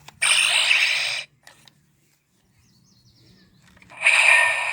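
Power Morpher toy playing electronic sound effects through its small speaker: two bursts of hissy, static-like effect noise of about a second each, one just after the start and one near the end.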